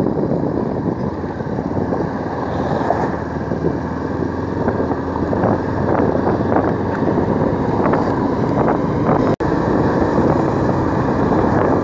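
Motorcycle running under way, its engine mixed with heavy wind buffeting on the microphone and tyre noise over a rough, broken road surface. The sound cuts out for a split second about nine seconds in.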